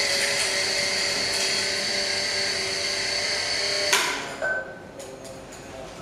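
Carlton Kohi KH-800 electric coffee grinder running and grinding beans, a steady high whir that stops with a click about four seconds in, followed by a few faint clinks.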